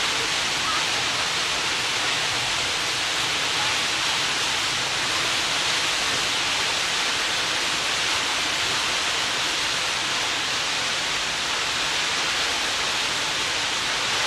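Steady rush of choppy sea water: an even hiss that does not let up.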